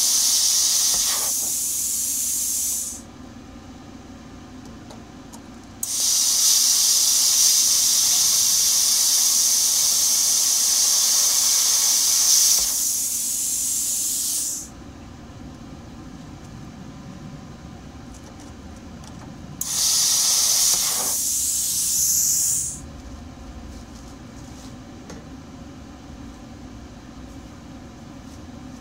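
Plasma cutter torch firing in three bursts of loud hiss, the longest about eight seconds, cutting around a bung in a rusty steel tank on low air pressure. Each burst drops to a softer hiss for a second or two before stopping, and a steady low hum carries on between them.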